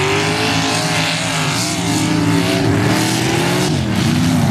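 Mud-racing pickup truck engines revving hard through the mud pit. The engine pitch rises and falls as the throttle is worked, over a steady rushing noise.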